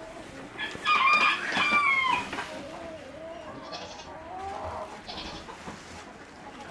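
Farm chickens: a rooster crows loudly about a second in, one call of about a second and a half that falls at the end, while hens keep up soft clucking calls around it.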